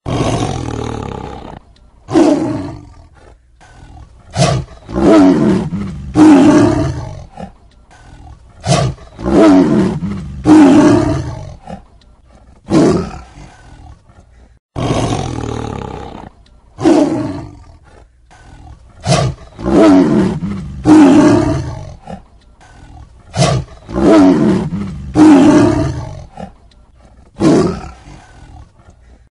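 Tiger roaring and growling over and over, a string of deep calls each about a second long with short pauses between, sometimes two or three in quick succession.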